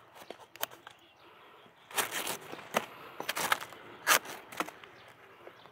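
Young bamboo shoots being snapped off by hand amid dry bamboo litter: a string of sharp snaps and crackles with rustling, the loudest snap about four seconds in.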